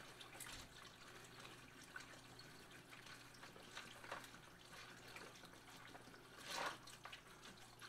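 Water poured from a plastic gallon jug into the tub of a Bubble Magic ice-water extraction machine, a faint trickle and splash into the ice. There is a brief louder noise about six and a half seconds in.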